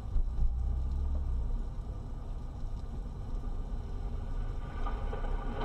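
Steady low rumble of engine and road noise inside a moving car, picked up by its dashcam.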